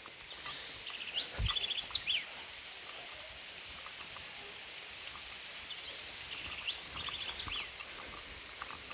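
A songbird sings the same short phrase twice, about five seconds apart: a quick trill and a few sharp falling notes, over a steady hiss of light rain.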